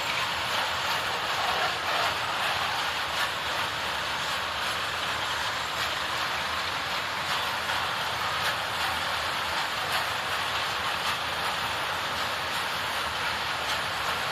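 ST43 diesel locomotive with its Sulzer engine, running steadily, with faint clicks scattered through the noise.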